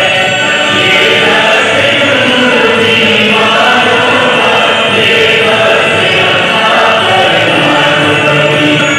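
Several voices singing together in chorus, loud and steady without a break.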